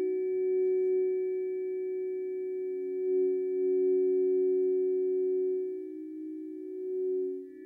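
Two tuning forks tuned to C and E ringing together as a major third: two pure, steady tones with faint high overtones. Their level swells and dips a few times, dropping briefly near the end before they sound again.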